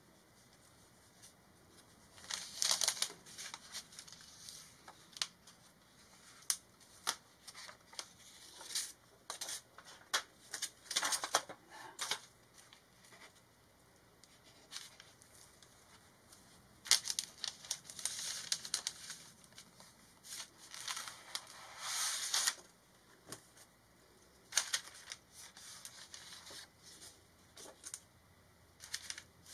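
Paper rustling and sliding as hands handle an old comic book on sheets of paper, in short bursts with light taps and clicks between quieter stretches.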